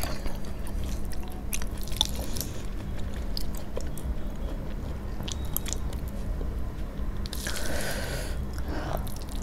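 A person chewing mouthfuls of rice and curry eaten by hand, with small crunches and wet mouth clicks, and the soft squish of fingers mixing rice and curry. The sound is denser for about a second near the end.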